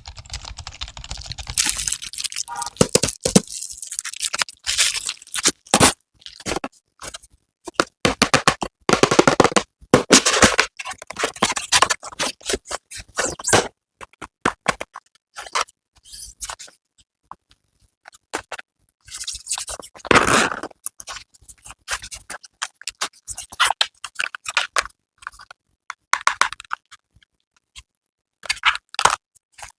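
Packaging being handled and opened: irregular scraping, rustling and crinkling in short bursts, with brief pauses.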